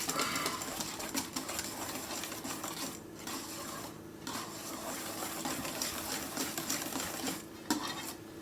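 Electric mixer running steadily as it beats sweet potato pie filling in a bowl, with short breaks about three and four seconds in and near the end.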